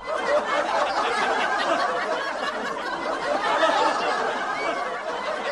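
A group of people laughing at once, many voices overlapping into a steady mass of laughter.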